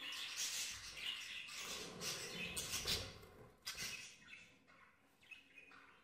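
Budgerigars chattering and chirping, busiest in the first three seconds, with a short burst near four seconds, then fading almost to nothing.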